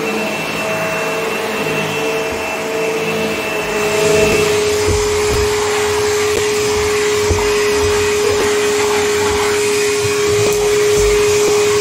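Vacuum cleaner motor running steadily as it works over carpet. About four seconds in the sound shifts to one steady hum with more hiss as the work moves to a hand tool on a stair tread, with a few soft bumps.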